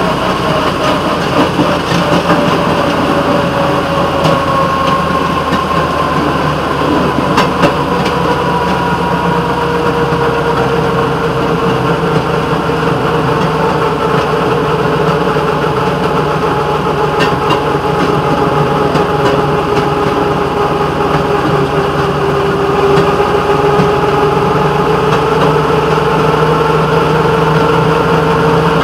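Railroad motorcar (speeder) engine running steadily as the car travels along the track, its pitch easing down over the first several seconds and climbing a little near the end, with a few clicks.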